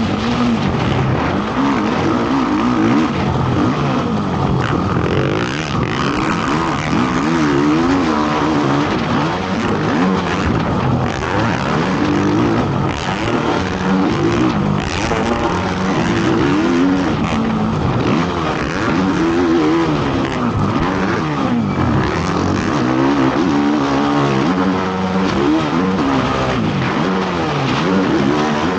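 Motocross racing ATV's engine revving and backing off again and again as it is ridden around the track, its pitch rising and dropping every second or two.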